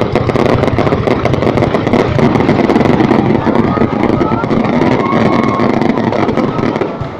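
Fireworks going off in a dense, continuous barrage of rapid crackling bangs over a steady roar, dying away near the end.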